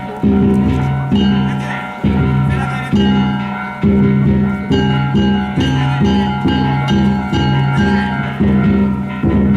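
Danjiri float music: a large taiko drum beaten in a steady rhythm with small kane gongs ringing along. The drum strokes come about once a second, then quicken to about two a second from around four seconds in.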